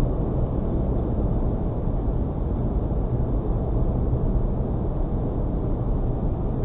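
Steady road and engine noise of a moving car as heard by a dashcam inside the cabin: an even low rumble.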